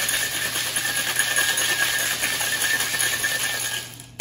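Ice rattling hard inside a locked metal cocktail shaker tin as a drink is shaken vigorously, stopping just before the end.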